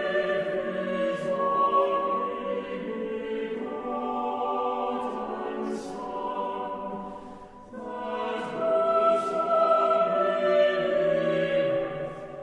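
Choral music, voices singing long held notes, in two phrases with a brief dip in level about seven and a half seconds in.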